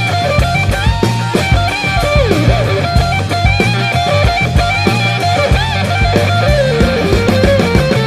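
Background rock music: a guitar playing a bending lead melody over a steady drum beat.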